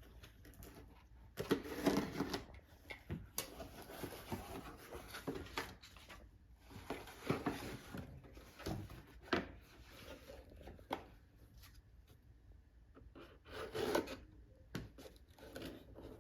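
Cardboard box and packaging being opened and handled: irregular rustling and scraping with light knocks, loudest about a second and a half in and again near the end.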